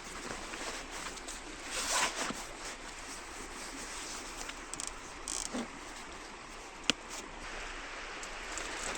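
Steady hiss of water, with a brushing swish about two seconds in and a single sharp click near seven seconds.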